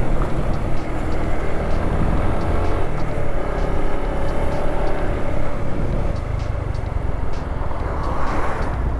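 Motorcycle riding at road speed: wind buffeting the helmet-mounted microphone over the bike's steady engine note. Near the end, an oncoming bus passes by with a brief rising whoosh.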